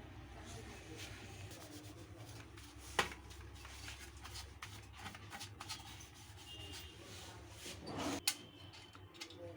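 Scattered light clicks and rubbing of handled objects, with one sharper click about three seconds in, over a low steady hum that stops about eight seconds in.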